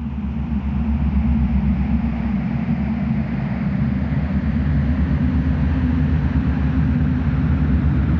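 Low, rumbling drone with a noisy hiss above it, swelling slowly in volume: the ambient intro of a deathcore song.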